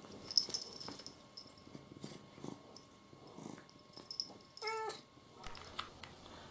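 A cat meows once, a short steady call near the end, over faint rustling of cats moving on bedding.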